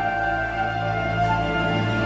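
Background music: a soft orchestral passage of sustained held notes.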